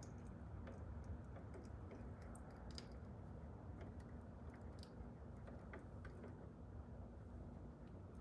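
Faint scattered small clicks and handling noises from electrical wires and a wire cap being worked by hand, over a low steady hum.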